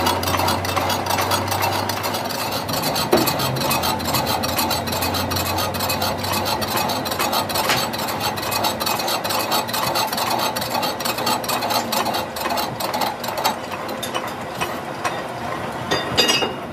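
A lathe turns a differential housing while a boring bar cuts metal from its bearing bore to bring the bearing seat to size. A low machine hum sits under a dense, rapid chatter of the tool cutting, and the sound drops away at the very end.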